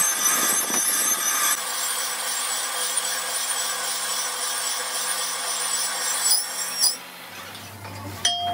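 Lathe cutting tool machining the inner surface of a truck brake drum: a steady scraping metal cut with a high ringing whine. The cutting stops about seven seconds in, leaving a lower steady hum.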